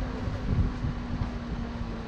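Vehicle engine running with a steady drone that drops slightly in pitch near the end, over a low, uneven rumble.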